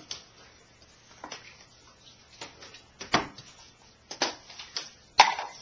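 Scattered light knocks and clatters of kitchen items being handled on a countertop and wooden cutting board, with a louder knock about three seconds in and a sharp clack a little after five seconds.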